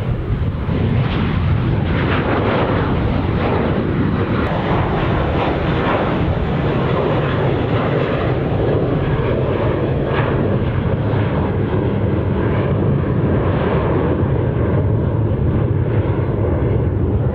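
Jet engines of twin-engine airliners (a Boeing 737 and an Airbus A320-family jet) at takeoff power as they climb out. The jet noise is steady and loud.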